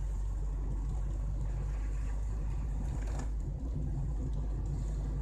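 Steady low drone of engine and tyre noise inside the cabin of a 2003 Chevrolet Celta driving on a rain-wet road, with one short click about three seconds in.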